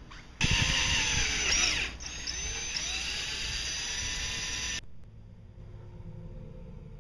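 Cordless drill running as it bores into the boat's hull side, its whine dipping and recovering in pitch under load. It runs in two stretches, a louder one of about a second and a half and then a steadier one of about three seconds, and stops abruptly.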